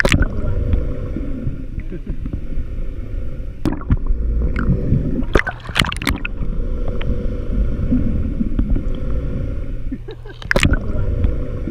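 Muffled underwater sound picked up by a submerged camera: a steady low rumble and hum of the boat's engine carried through the water. A few sharp knocks and splashes break in, near the start, around four and six seconds in, and near the end.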